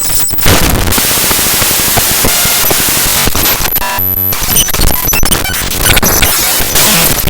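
Raw bytes of the ffmpeg.exe program file played as audio by Binary Waterfall: harsh, dense static and crackle that shifts abruptly. About four seconds in comes a brief buzzing tone.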